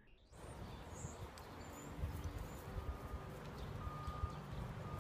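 Outdoor ambience: an irregular low rumble with a few faint bird chirps and short high whistled notes.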